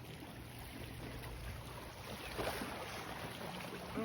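Low, steady drone of a passing boat's motor out on the water.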